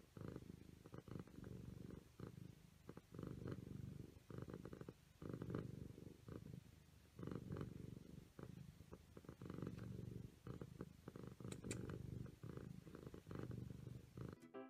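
Seal-point Siamese cat purring close to the microphone, in repeated stretches with short dips between them as it breathes in and out.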